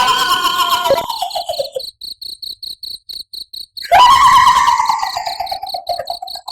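Eerie female wailing cry, a horror sound effect: a long moan falling in pitch that trails off about two seconds in, then returns louder near four seconds in and sinks again. Crickets chirp steadily behind it, about five chirps a second, heard plainly in the gap.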